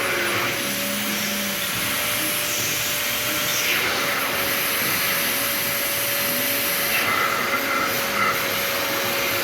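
Vacuum cleaner running steadily: a continuous rushing air noise with a steady whine held on one pitch.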